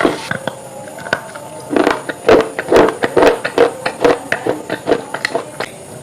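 A run of sharp crunching sounds, irregular at about two to three a second, with a pause for about a second near the start, over faint steady tones.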